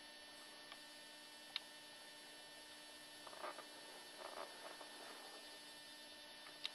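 Faint steady electrical mains hum with a whine above it. There is a single sharp click about a second and a half in, and soft handling noises around the middle.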